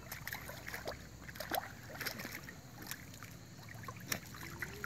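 Small, irregular splashes and clicks from a Saint Bernard puppy's paws moving in shallow creek water, over a faint, steady wash of the creek.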